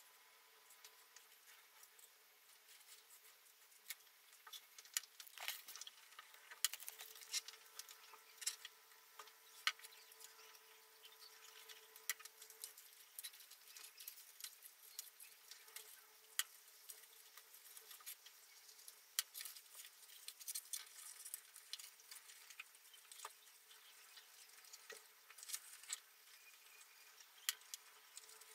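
Pre-cut paper pieces being handled, creased and pressed together while assembling a 3D paper model: faint, irregular crinkles, rustles and small taps.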